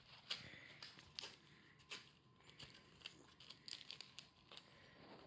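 Faint, scattered rustling and crinkling of torn shoji paper and a plastic bag as a kitten steps over them, a string of small irregular crackles.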